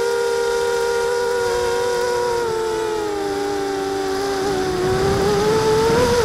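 260-size FPV quadcopter's electric motors and propellers whining, heard through the onboard camera's microphone; the pitch holds, sags over a couple of seconds as the throttle comes off, then climbs back with a rush of air as the throttle goes up again near the end.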